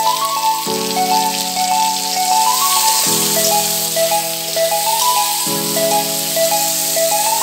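Background music, a melody over sustained chords that change about every two and a half seconds, with the steady hiss of chicken pieces frying in a kadai underneath.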